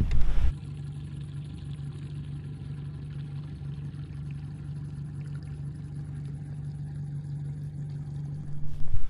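Boat motor running steadily, a low even engine hum. A brief rush of noise right at the start.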